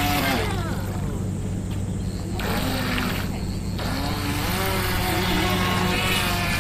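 Small electric motor of a remote-control speedboat (a 380 motor) whining, its pitch falling and rising as the throttle is eased and opened, over a steady low hum.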